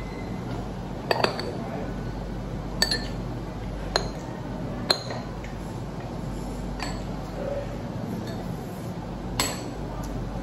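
Metal cutlery clinking against ceramic bowls as food is scooped up, about eight sharp clinks at irregular intervals over a faint low hum.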